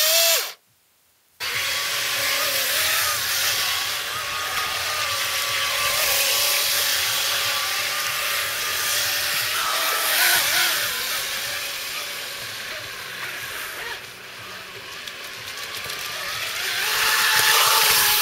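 Radio-controlled jet boat's brushless electric motor and Graupner jet drive running at speed over rough water: a steady whine over the rush of water, wavering in pitch a few times with the throttle. A short rev right at the start cuts off into about a second of near silence before the run.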